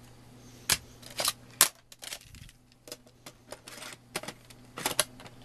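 Irregular sharp plastic clicks and clacks, about a dozen, from Zip disks and a Zip drive being handled, over a steady low electrical hum.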